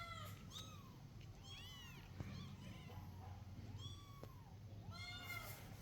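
Newborn kittens mewing: about half a dozen thin, high-pitched mews, each rising and falling in pitch, some overlapping, at a faint level.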